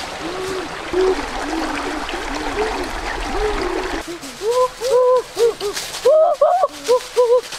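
Many short hooting calls, each rising then falling in pitch and repeated rapidly, some overlapping, over the rush of a shallow stream. The stream noise cuts off about four seconds in, and the calls carry on louder and more clearly.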